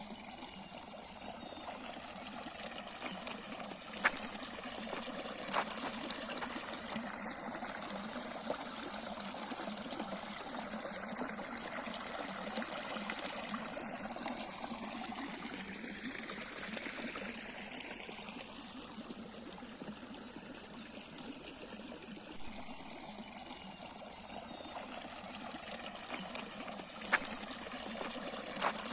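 River water flowing and trickling steadily, with a few brief sharp clicks scattered through it.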